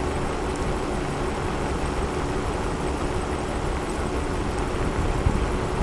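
Electric scooter riding along an asphalt road, its tyre rumbling steadily on the surface with a steady hum running through the noise.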